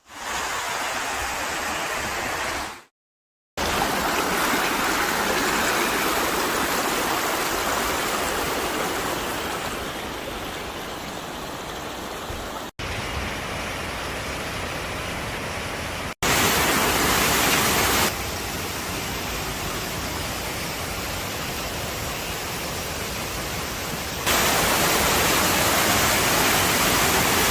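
Mountain stream water rushing over rocks, a steady, even noise. It breaks off with a short silence about three seconds in and shifts abruptly in loudness several times, like separate takes of the water joined together.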